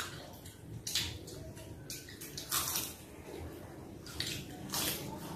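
People eating by hand: wet chewing and lip smacks, heard as a handful of short, scattered smacking clicks over a quiet background.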